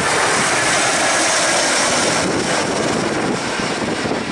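Airbus A320-214 airliner on final approach to land, its CFM56 jet engines running at low approach power: a loud steady rushing noise with a faint high whine, dropping a little about two seconds in as the aircraft passes.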